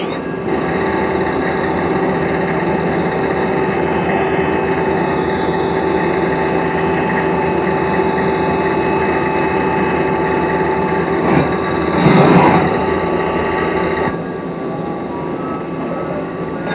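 A machine running steadily with a hum of several steady tones. A loud burst of noise comes about twelve seconds in, and the running sound drops off at about fourteen seconds.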